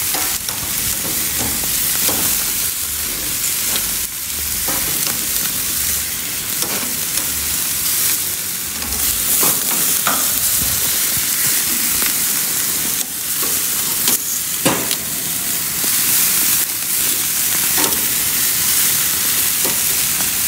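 Lamb leg steaks sizzling on a hot gas grill set near 500 degrees: a steady hiss with short crackles and pops here and there.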